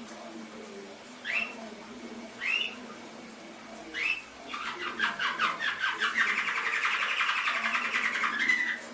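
Domestic canary singing: three short rising chirps a little over a second apart, then a fast rolling trill of rapid repeated notes lasting about four seconds and ending on a brief rising note.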